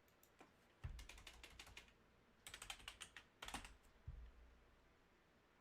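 Faint computer keyboard typing: three short runs of quick keystrokes, with a few soft low thumps among them.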